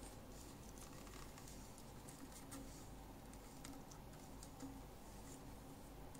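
Faint handling noise: scattered light clicks and rubs as a square 5x7-inch LED headlight and its plug cable are turned over in the hands.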